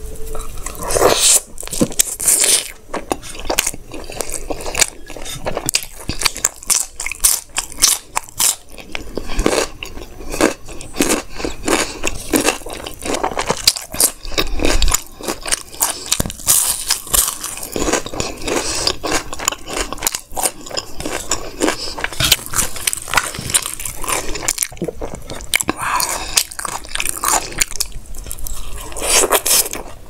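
Close-miked eating of chole bhature by hand: biting, chewing and wet mouth sounds, with a dense, irregular run of small crunches and clicks.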